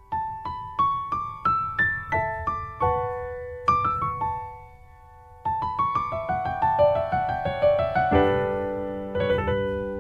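Background piano music: single struck notes climbing in a run, a short pause about halfway, then faster rippling broken chords settling onto a fuller chord near the end.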